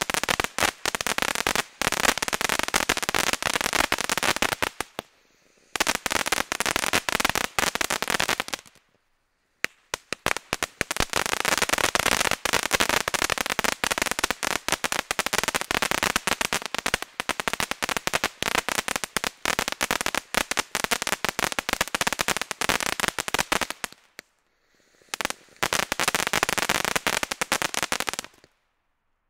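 Ground firework fountain spraying sparks with a dense, rapid crackle, breaking off for a moment three times and stopping near the end.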